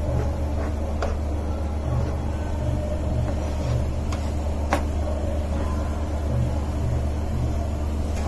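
Chopped onions and green chilies frying in oil in a non-stick pan while a plastic ladle stirs them, with a few light scrapes and knocks of the ladle against the pan. A steady low hum runs underneath.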